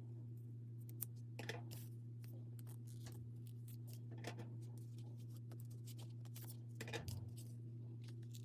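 Scattered short scrapes and rustles of a blade cutting into the sealed paper packet of an album's postcard set, over a steady low electrical hum.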